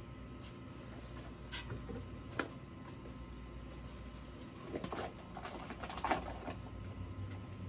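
Scattered light clicks and knocks of kitchen containers and utensils being handled on a table, over a low steady hum from the gas burner under the pot.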